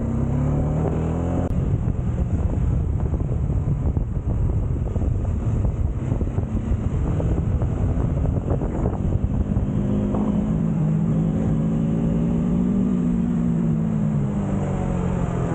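Bajaj Dominar 400's single-cylinder engine running at speed on the road, its note climbing under throttle about ten seconds in and dropping back near the end, with heavy wind rumble on the microphone.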